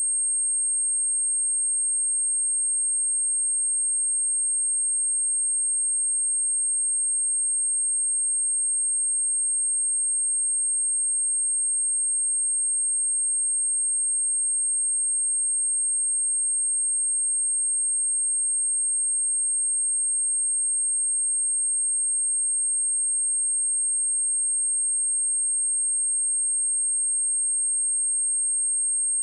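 A steady, high-pitched 8513 Hz sine-wave test tone, one pure pitch held without change. It is played to test speakers and to shake water and dust out of a speaker grille.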